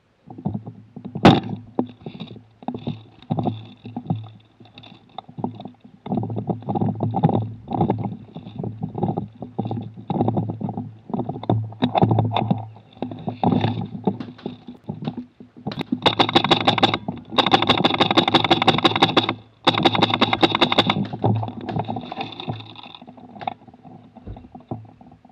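Airsoft gun firing, heard from a camera mounted on its rail: many short bursts, then three long full-auto strings a little past halfway, the loudest part.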